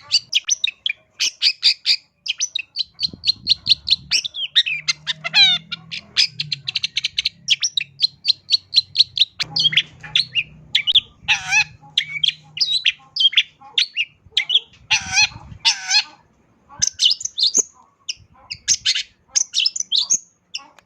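Long-tailed shrike (cendet) singing a fast, varied song of sharp chirps and quick trills, full of mimicked notes, with a brief pause about two-thirds through.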